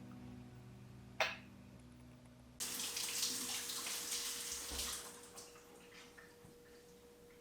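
Running water, like a tap, starting suddenly about two and a half seconds in and running for about two seconds before tapering off, with a single click shortly before.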